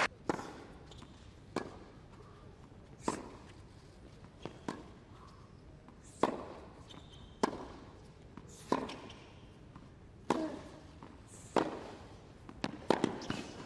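A tennis ball struck back and forth by rackets in a baseline rally on a hard court, one sharp hit about every second and a half, with quieter hits closer together near the end.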